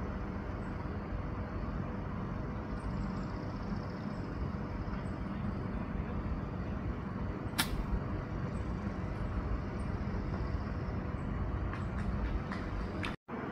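A single sharp click of a golf club striking the ball on a short chip shot, a little past halfway through, over a steady outdoor background hum.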